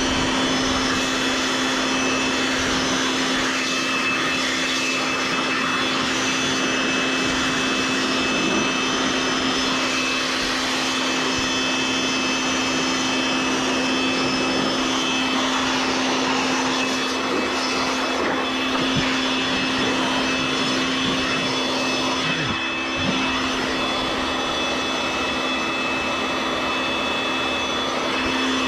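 Handheld electric air blower running steadily, blowing thick dust out of an air-conditioner condensing unit: a constant motor hum under a rushing of air.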